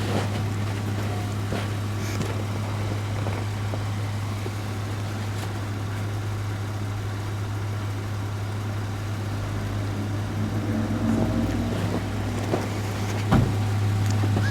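Vehicle engine running steadily with a low hum, a few faint tone changes about eleven seconds in, and a single knock near the end.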